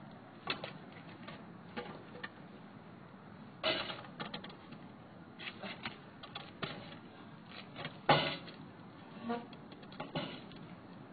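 Scattered knocks, taps and scrapes of handling and movement on the roof close to the phone, irregular, with the loudest knock about eight seconds in.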